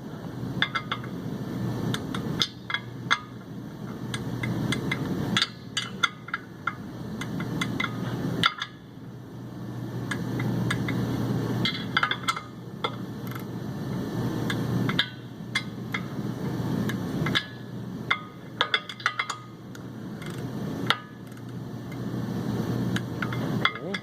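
Metal hand tools clicking and clinking in short bursts while the clutch pressure plate bolts are worked on, over a steady low hum.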